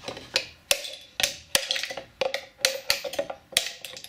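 Hammer repeatedly striking the end of a wooden-handled chisel driven into an old plastic battery case, cutting out the cell partitions. About ten sharp blows at an uneven pace of two to three a second.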